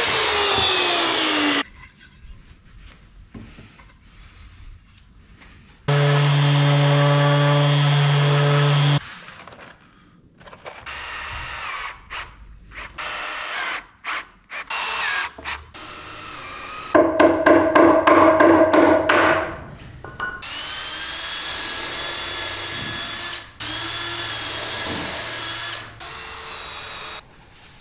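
Power tools working timber: a mitre saw's blade spinning down just after a cut, then several separate runs of a cordless drill-driver driving screws into wooden framing. In the last runs the motor's pitch climbs as it speeds up.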